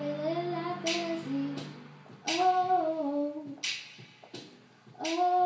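A young woman singing wordless held notes, close to a microphone, in short phrases that step down in pitch, over a low sustained keyboard chord. A sharp, hissy percussive hit, like a cymbal or snare, lands about every second and a half.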